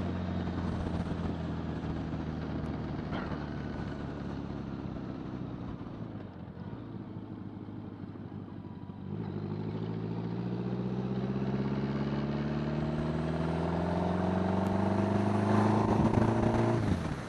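1975 Honda Gold Wing's flat-four engine and exhaust running while riding. It eases off and goes quieter around six to nine seconds in, then pulls with a steadily rising pitch, and the pitch drops sharply just before the end.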